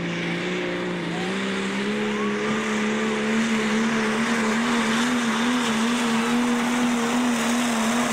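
Modified diesel pulling tractor's engine running at full throttle under heavy load as it drags the weighted sled: a loud, steady drone that dips slightly about a second in, then climbs and holds with a slight waver.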